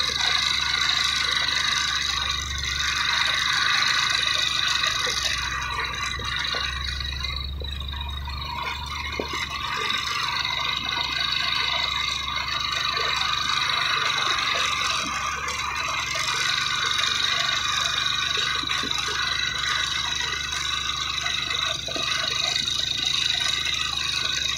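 Low, steady engine noise of vehicles climbing a hill road behind a heavily overloaded cane truck that is struggling on the grade, with a constant high-pitched drone over it.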